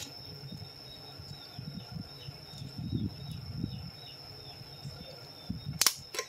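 Quiet handling of an eyeglass frame as it is opened and checked, with faint rubbing and a sharp click about six seconds in and a smaller one just before the end, over a steady high-pitched whine.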